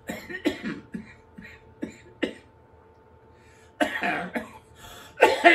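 An elderly man coughing repeatedly: a few short coughs, then two louder coughing fits about four seconds in and near the end.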